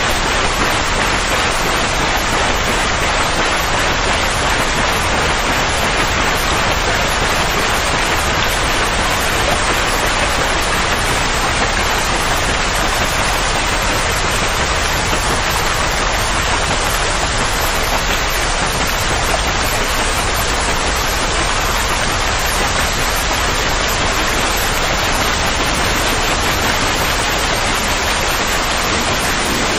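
A loud, continuous, unchanging rushing noise of the rain-like steady kind played to calm colicky babies.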